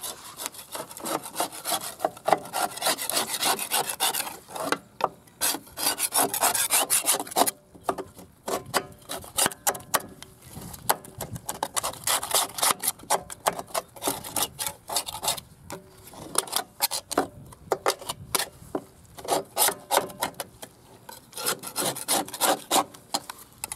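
Flat metal scraper blade scraping caked grass and dirt off the underside of a Cub Cadet mower deck, in runs of quick strokes with brief pauses.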